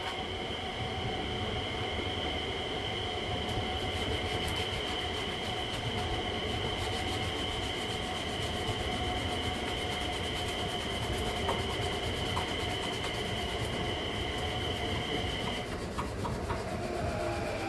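The electric motor of a window box fan, running with its blade off. It spins up, runs steadily with a high whine over a rumble, then near the end shuts off and its pitch falls as it winds down. The motor is being tested mid-repair and is working only partly right.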